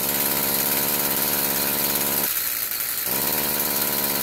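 Stihl FS46 string trimmer's small two-stroke engine running but not revving up, bogging down. Its note drops out briefly about two seconds in. The exhaust is choked by a plugged spark arrestor screen.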